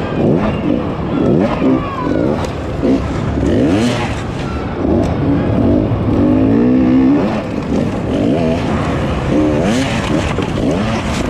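Dirt bike engine heard from on the bike, revving up and falling back again and again as the throttle is opened and shut over the obstacles.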